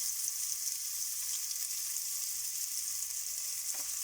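Chopped onion sizzling in hot groundnut oil with whole spices in a pressure cooker: a steady, high hiss. A light tap comes near the end.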